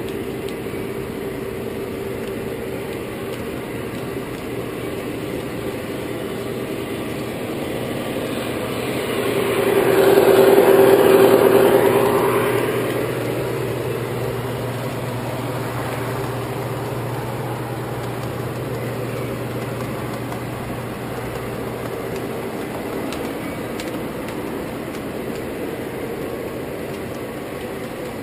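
An O-scale model train rolling along three-rail track, heard from a camera riding on the flat car it pushes: a steady rumble with a hum running under it. The sound swells loud for a few seconds about ten seconds in, then settles back.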